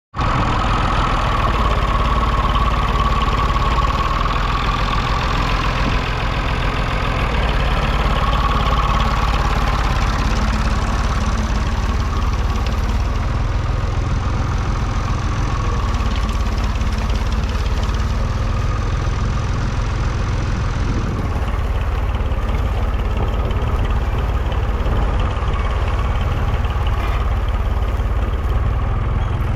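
Three-cylinder diesel engine of a 1969 Massey Ferguson 20 Industrial tractor running steadily.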